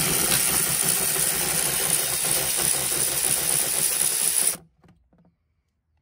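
Milwaukee cordless ratchet motor running steadily as it spins out a 12 mm valve cover bolt. It cuts off suddenly about four and a half seconds in.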